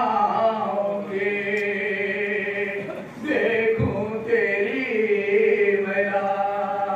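Unaccompanied men's voices chanting a nauha, a Shia mourning lament for Imam Husayn, led by a reciter on a microphone, in long held notes. There is a brief break about three seconds in and a single low thump just under four seconds in.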